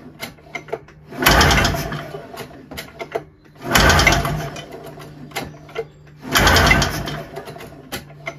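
Recoil pull-starter of a Ski-Doo Formula MX's Rotax two-cylinder two-stroke engine yanked hard three times, about two and a half seconds apart, each pull cranking the engine over briefly without it firing, during a compression test. Short clicks between pulls.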